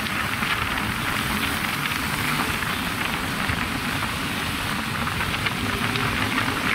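Steady rushing wind and road noise from a moving motorcycle, with the engine running low underneath.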